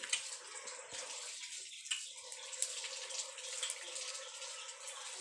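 Pork skewers sizzling over a charcoal grill, with a fine irregular crackle from fat and coals, over a steady rushing hiss and faint hum from electric standing fans blowing on the coals.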